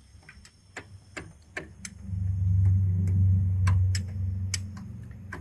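Hand ratchet wrench clicking in short, uneven strokes on bolts of a truck's diesel engine. A low vehicle rumble swells about two seconds in and fades a couple of seconds later.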